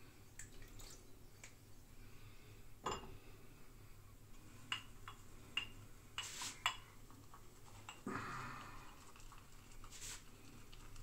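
Scattered light clicks and clinks of a metal safety razor and shaving gear being handled and set against hard bathroom surfaces, with a short swish about eight seconds in.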